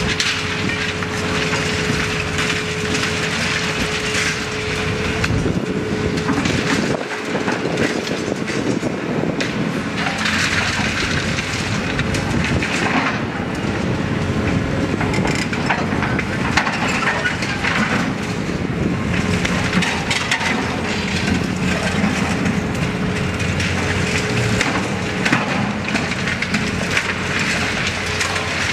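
Terex demolition excavator running, its diesel engine and hydraulics working steadily while its attachment crunches and breaks reinforced concrete. Chunks of concrete crack and tumble onto the rubble pile throughout.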